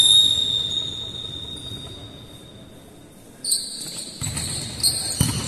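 Referee's whistle: one long, high blast that rings on in the hall as it fades. From about three and a half seconds in come further shrill whistle-like tones and two dull thuds.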